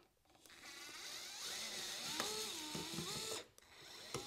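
DeWalt DCF682N1 8V gyroscopic cordless screwdriver running at low, varying speed on a switch-plate screw. Its motor whine steps up and down in pitch, stops about three and a half seconds in, then starts again briefly near the end.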